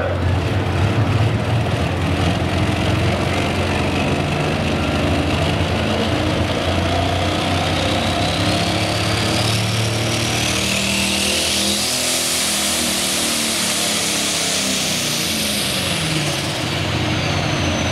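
A super stock pulling tractor's diesel engine running hard and loud, with a high whine that climbs over the first ten seconds or so and falls away near the end as the engine note drops.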